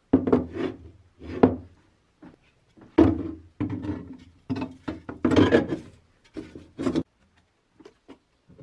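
Handling knocks and scrapes as a red plastic tub is set down on a wooden tabletop and a rusted Adrian steel helmet is laid into it, a string of separate thuds and rubs. A few light clicks follow near the end.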